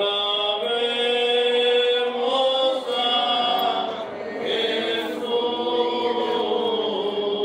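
A voice singing a slow religious chant in long, drawn-out notes, with a short break about four seconds in.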